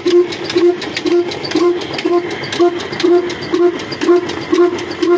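Old Ruston single-cylinder diesel engine running at a slow, even beat of about two firing strokes a second, each with a sharp knock, while it drives the flour-mill grinders by flat belts.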